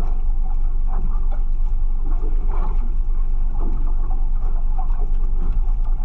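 Steady low rumble aboard a small boat at sea, with scattered light knocks and clatter from gear on deck.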